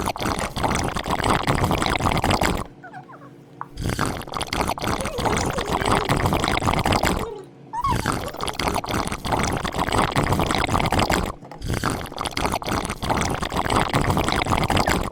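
Slime being squeezed and mixed by hand: wet squelching and crackling pops in four long stretches with short pauses between them.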